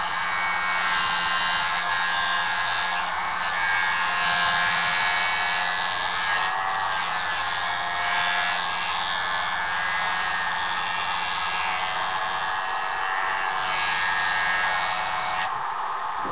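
JoolTool sharpening system running, its spinning abrasive disc grinding a tool edge with a steady whine and hiss. The grinding swells and eases a few times.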